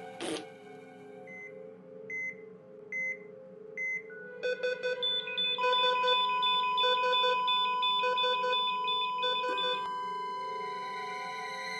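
Electronic alarm-style sound effects: a short burst of noise, then four short high beeps a little under a second apart, then a fast pulsing electronic alarm with a steady tone held under it, cutting off near the end.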